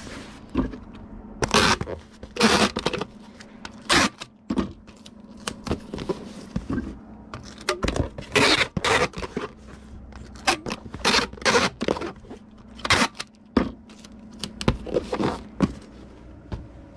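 Irregular scraping and rustling strokes of a package being handled: packing peanuts shifting and a cardboard box being worked closed.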